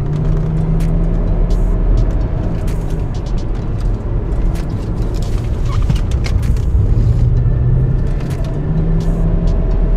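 Audi A4 car driving, heard from inside the cabin: steady engine and road noise, the engine note dropping lower about seven seconds in and rising again near the end.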